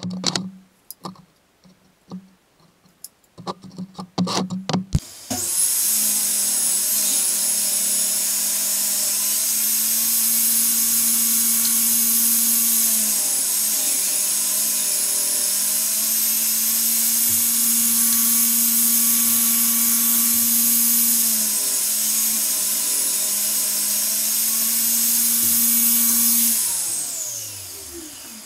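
A few sharp knocks of wood being handled, then a table saw switched on and running with a steady whine. Its pitch sags twice as a board is fed through the blade along the fence. Near the end it is switched off and winds down, falling in pitch until it stops.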